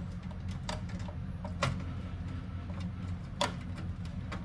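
Handling noise from fitting screws during a computer build: a few sharp clicks and taps of the screwdriver and parts, the loudest about three and a half seconds in, over a steady low hum.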